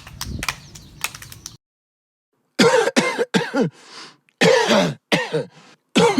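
A person coughing and clearing their throat in a string of about seven short, loud bursts, each dropping in pitch, starting after a second or so of low background noise with a few clicks.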